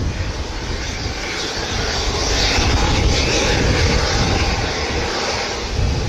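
Westland Sea King helicopter in flight overhead: its twin turboshaft engines and main rotor make a steady rushing noise that grows a little louder about two seconds in.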